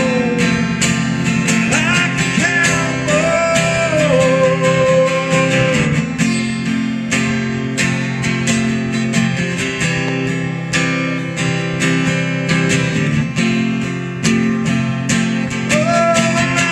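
Acoustic guitar strummed in a steady rhythm, with a man singing long held notes over it for the first several seconds, then the guitar carrying on alone until his voice comes back in near the end.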